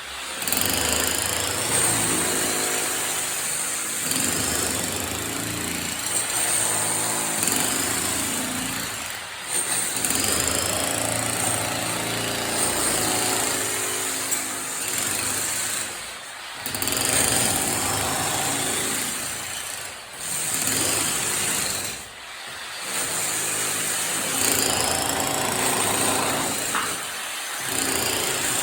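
Handheld electric power tool running under load in long bursts, stopping briefly about five times between them.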